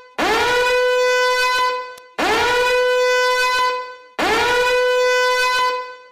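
Alarm horn sounding repeated warning blasts, three in a row about two seconds apart. Each blast swoops up quickly in pitch, holds one steady note, then fades out.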